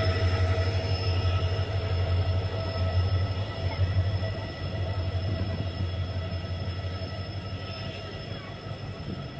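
Train pulling away: a low steady rumble with faint steady tones above it, fading gradually as the train moves off, the rumble dropping away about halfway through.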